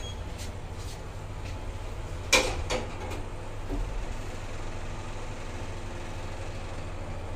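Old Fujitec lift's doors sliding shut, meeting with one loud clunk about two seconds in, then a smaller knock and a few faint clunks. A steady low hum of the lift runs underneath.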